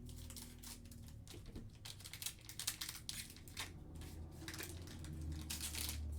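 Foil trading-card pack wrapper being torn open and crinkled by hand, a run of short irregular crackles.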